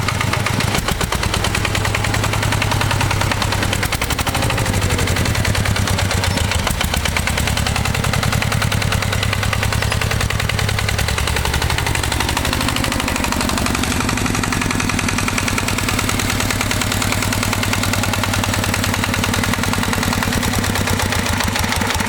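Single-cylinder diesel engine of a homemade walk-behind-tractor mini-tractor running with a fast, even clatter; its speed changes about halfway through. A new piston, piston pin and bushing were fitted to cure a piston-pin knock, and the owner says the knock has stopped.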